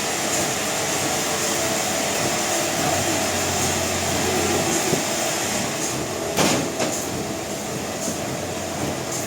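Sawmill machinery running steadily, a continuous mechanical noise with a high hiss, and one sharp knock about six and a half seconds in.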